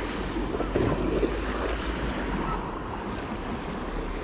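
Wind buffeting the microphone over the wash of the sea, swelling louder for a moment about a second in.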